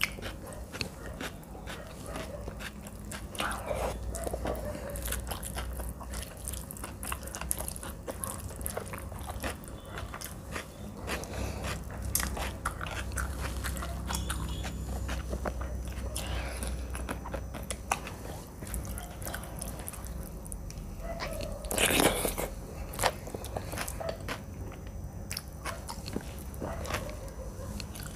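Close-miked eating sounds: wet chewing, lip smacks and small clicks from a mouthful of rice and mashed bharta eaten by hand, with one louder mouth noise about three-quarters of the way through.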